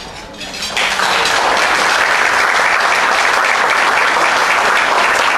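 Audience applauding: clapping breaks out about a second in and holds steady and loud.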